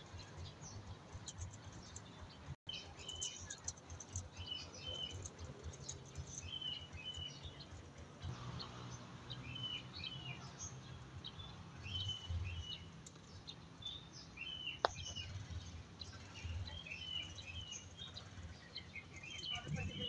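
Small birds chirping, a short high chirp phrase repeated again and again, over a low rumble. There is one brief dropout about two and a half seconds in and a single sharp click near the end.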